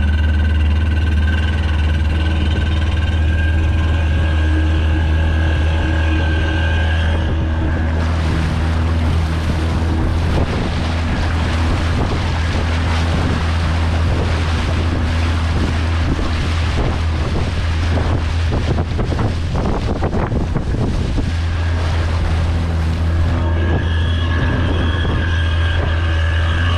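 Speedboat engine running at a steady pitch with a low drone. From about eight seconds in until about twenty-one seconds, a loud rushing of wind and water with rough bumps rises over the engine, then eases off.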